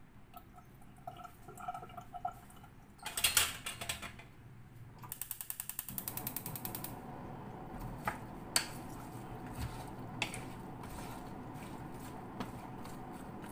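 Gas stove igniter clicking rapidly, about eight clicks a second for roughly two seconds, then the burner catching with a steady rushing hiss. A short noisy clatter comes before the clicking, and a few sharp knocks of pots and utensils follow.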